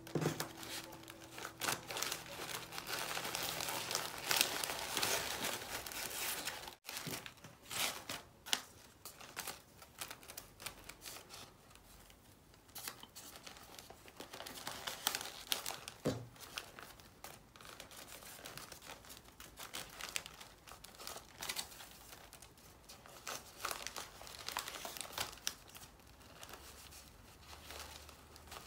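Wrapping paper and tissue around a flower bouquet crinkling and rustling as ribbons are handled and tied around it by hand, in irregular rustles that stop briefly about seven seconds in.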